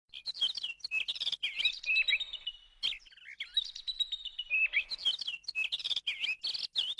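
Songbirds chirping and whistling in quick runs of notes mixed with sharp clicky calls, the song cutting off abruptly at the end.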